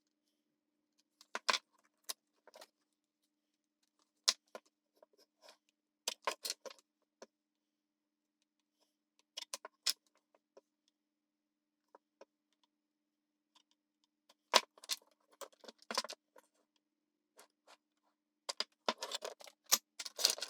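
Scattered small clicks and scrapes of hand tools working on a circuit board, in irregular clusters, over a faint steady hum.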